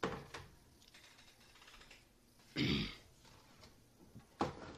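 Clicks and knocks from an opened LCD monitor's metal-framed panel and plastic back housing as they are handled and tilted. One louder noise of about half a second comes near the middle.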